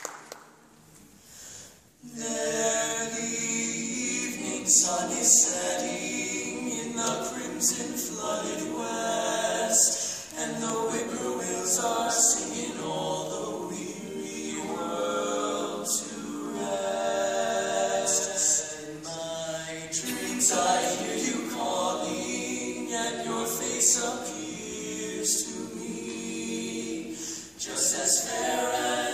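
Male barbershop quartet singing a cappella in four-part close harmony, starting about two seconds in after a brief hush.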